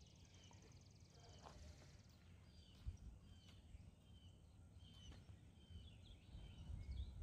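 Faint outdoor ambience: scattered short bird chirps over a low wind rumble, with a single thump about three seconds in.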